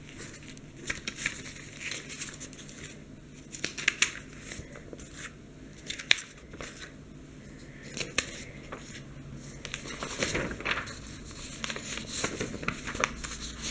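Sheets of paper rustling and crinkling as a stack of paper cutouts is lifted and turned over sheet by sheet, in short irregular bursts.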